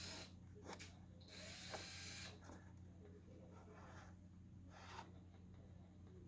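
Near silence with a faint steady electrical hum from a plugged-in GE 7-4725 clock radio that is switched on but receiving no station. There is a short burst of hiss about a second and a half in, and a few faint clicks.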